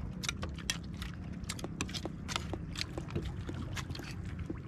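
Sounds on board a small boat at sea: irregular sharp clicks and taps, several a second, over a low steady rumble.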